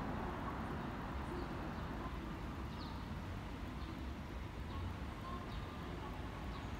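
Steady low background rumble with a few faint, short bird chirps scattered through it.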